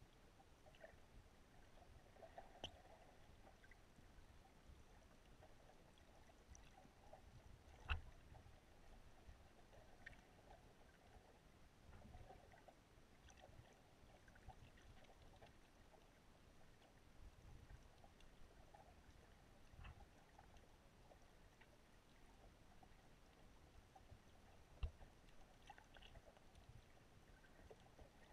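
Near silence: faint underwater ambience, with a few sharp clicks, the loudest about eight seconds in and another near the end.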